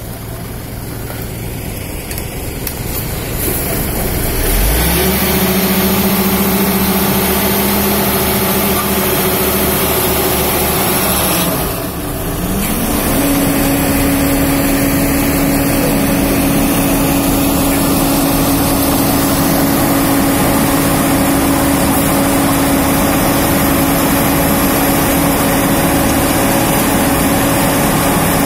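Heavy diesel engines of an asphalt finisher and a dump truck running, the drone growing louder over the first few seconds. About twelve seconds in, the engine note dips briefly, then settles at a higher steady pitch.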